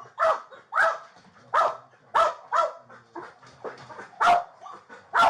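Police K9 dog barking repeatedly in a steady string, nearly two barks a second.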